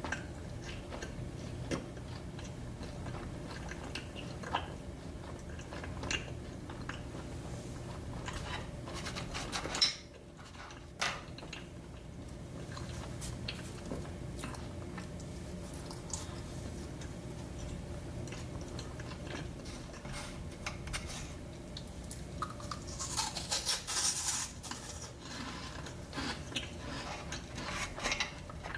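Close-miked eating sounds: scattered small clicks of a utensil on a dish and soft chewing over a steady low hum. A sharp click comes about ten seconds in, and a short burst of crisp rustling or crunching comes near the end.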